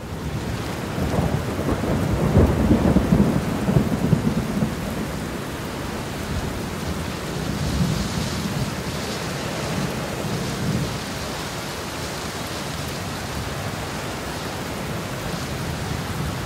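Thunderstorm: steady rain with a rolling rumble of thunder that is loudest in the first few seconds, then eases off to an even rain.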